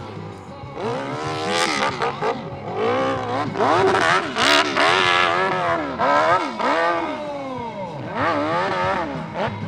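Open-class hillclimb motorcycle engine revving hard, its pitch rising and falling over and over as the throttle is worked on the climb, loudest about halfway through.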